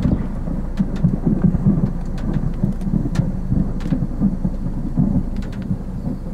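Storm wind buffeting the microphone as a loud, unsteady low rumble, with scattered sharp ticks of raindrops.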